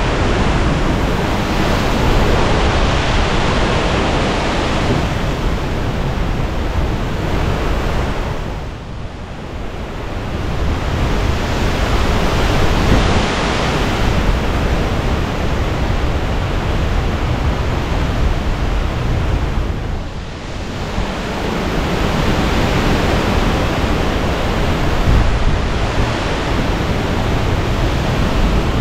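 Hurricane-force eye-wall wind blowing hard and buffeting the microphone. It goes in gusts, easing briefly about a third of the way in and again about two thirds of the way in, then rising again.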